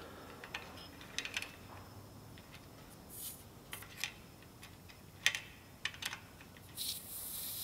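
Small screwdriver clicking and scraping in the slots of a pressure pot's pop-off valve as it is turned counterclockwise to loosen the valve spring: scattered light metal ticks. Near the end a steady hiss of compressed air begins.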